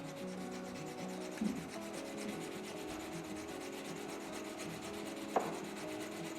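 Bentwood knife blade being rubbed back and forth on a wet 1000-grit whetstone, a steady gritty scraping as the edge is honed. Two brief knocks sound, about a second and a half in and again near the end.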